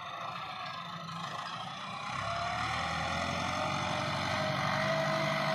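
Massey Ferguson 375 tractor's diesel engine running steadily under load while pulling a disc harrow. The engine gets louder and its whine rises slightly about two seconds in.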